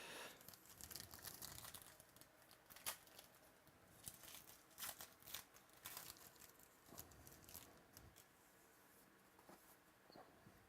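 Faint crinkling and tearing of packaging as a sealed trading-card box is opened, with a scatter of small crackles that thin out near the end.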